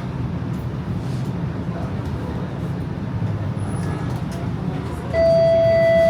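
Toronto streetcar running with a steady low rumble, then about five seconds in a loud, steady electronic beep lasting about a second: the streetcar's onboard tone that comes just before the exit announcement.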